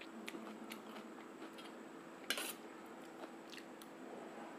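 A metal spoon clinking and scraping against a steel plate of chickpea curry: a few light clicks, and one louder clink about two seconds in.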